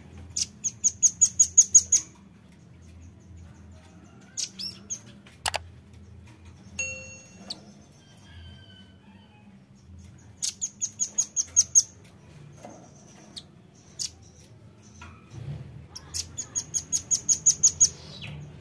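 Velvet-fronted nuthatch calling: three bursts of rapid, high, sharp notes, about six a second, each burst growing louder as it goes, with scattered single notes in between.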